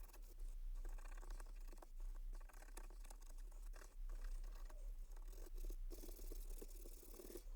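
Faint, irregular scratchy rubbing strokes on a wooden piece, over a steady low mains hum.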